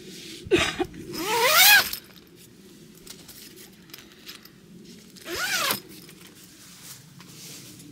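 A zipper being pulled in quick strokes: a short zip, then a longer one rising in pitch, and another a few seconds later that rises and falls.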